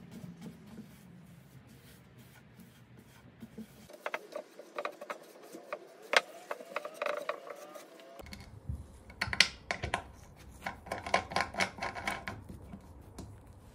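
Small clicks and taps from gloved hands working on a wooden drawer: scattered and quiet while a cloth is wiped over the top, then a dense run of sharp clicks over the last few seconds as a round recessed metal drawer pull is fitted into the drawer front.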